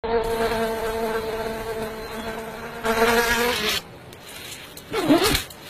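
A flying insect's wings buzzing in a steady hum, louder for a moment about three seconds in, then cutting off just before four seconds. About five seconds in comes a short wavering squeak.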